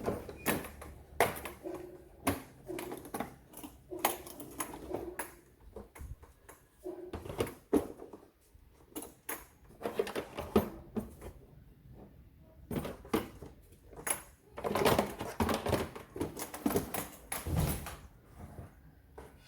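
Irregular plastic clicks and knocks of a cordless drill and its battery pack being handled as the battery is unlatched and taken off, with denser clatter about ten seconds in and again near the end.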